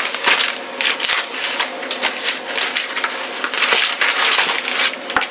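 Plastic food packaging being handled and crinkled: a continuous run of irregular crackles and rustles.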